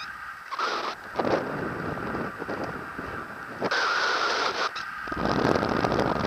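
Wind buffeting the camera microphone of a paraglider in flight, rushing in gusts about one and four seconds in and turning to a heavier low rumble about five seconds in.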